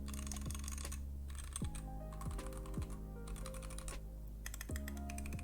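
Typing on a Keychron Q0 aluminium numpad with Tecsee Purple Panda tactile switches and Tai-Hao OEM-profile keycaps: flurries of key clicks with short pauses, a longer pause about four seconds in. The keystrokes sound very metallic, with rattling stabilizers on the long keys. Background music plays underneath.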